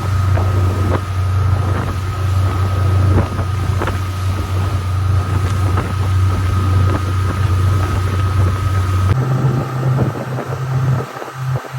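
Motorboat engine running with a steady low drone, wind buffeting the microphone and occasional short knocks. About nine seconds in the sound changes abruptly and the drone becomes patchy.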